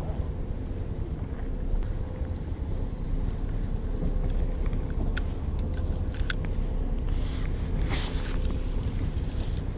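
Fishing boat's engine running with a steady low rumble and hum, with wind on the microphone. A few light clicks come about five to six seconds in, and a short rush of noise about eight seconds in.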